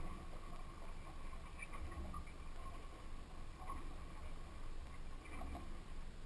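Low rumble of wind and water lapping against a small boat's hull, swelling and dipping, with a faint steady hum and a few faint scattered knocks.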